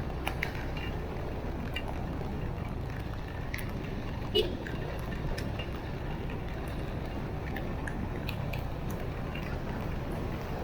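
Steady rush of heavy rain and water, with scattered drip-like ticks and one sharp tap about four and a half seconds in.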